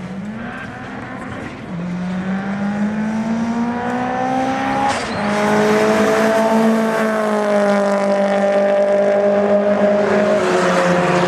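Race car engine at high revs accelerating down a sprint strip. Its pitch climbs over the first five seconds and breaks briefly at a gear change, then holds high and steady while getting louder.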